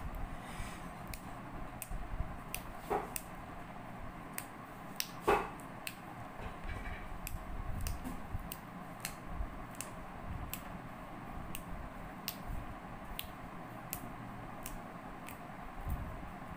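Irregular sharp clicks and taps, about one or two a second, over a steady background hum, with a louder knock about five seconds in.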